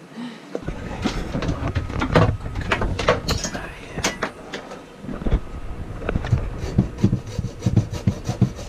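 Hand tools and a plastic hose being handled: a hacksaw and other tools knocking, clattering and scraping against each other in a tool box, in irregular bursts with some dull thumps.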